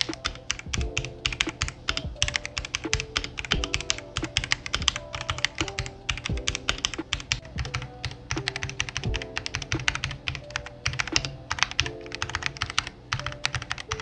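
Fast typing on a Machenike K500 mechanical keyboard, a dense run of keystroke clacks. It is typed first with its stock keycaps and then with thick XDA-profile PBT keycaps. Background music with held notes plays underneath.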